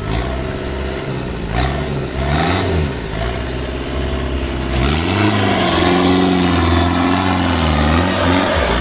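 Off-road 4x4 buggy's engine revving in short throttle blips, then pulling hard under load with its pitch wavering as the buggy climbs over dirt mounds, easing off near the end. A thin high whine rises and falls above the engine.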